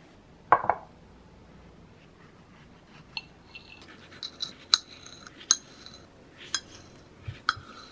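Two soft knocks about half a second in, then a knife cutting strawberries on a ceramic plate, its blade striking the plate in a series of sharp, ringing clinks.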